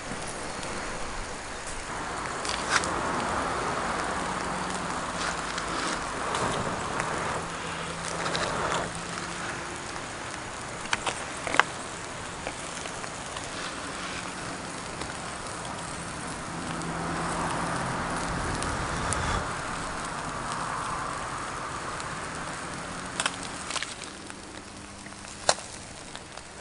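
Wood fire burning in a small fire pit: a steady crackling hiss with sharp pops every few seconds, swelling louder twice along the way.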